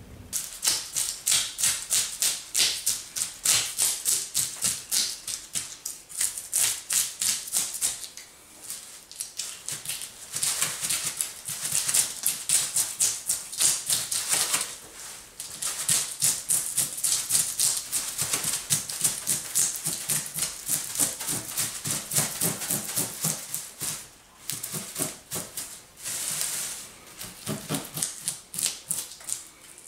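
A striped bass being scaled with a blade: quick rasping scrapes against the scales, several strokes a second, in runs broken by short pauses.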